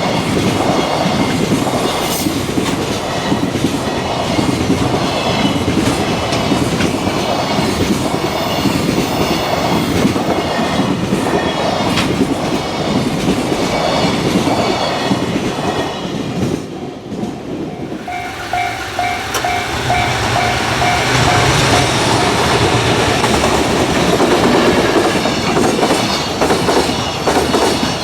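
Freight train running past at speed, its wheels clacking over the rail joints in a steady rhythm. About two-thirds of the way through the sound drops briefly, then a level-crossing warning bell dings about twice a second for a few seconds over the noise of train wheels on the track.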